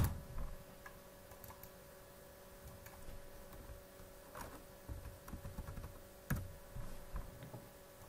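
Computer keyboard and mouse clicks: one sharp keystroke at the start, then a few scattered lighter clicks, over a faint steady hum.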